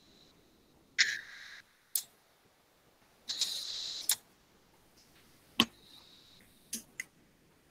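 Faint scattered clicks, about six in all, with two short bursts of hiss, the longer one just under a second, lying about 3 to 4 seconds in.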